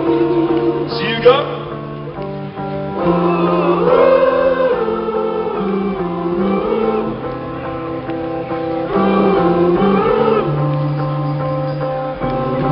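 Live band music played through a festival PA and heard from the crowd: held chords that change every second or two under voices singing, with a short rising sweep about a second in.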